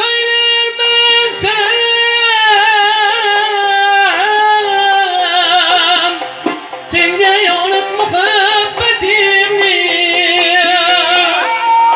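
A man singing a long, ornamented Uzbek folk melody in a high voice with heavy vibrato, accompanied by a small traditional ensemble of frame drum (doira), side-blown flute, long-necked lutes and accordion.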